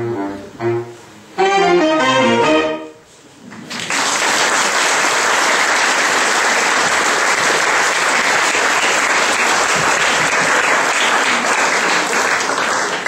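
A saxophone octet plays its closing phrases, ending on a loud held chord that stops about three seconds in. About a second later an audience breaks into steady applause.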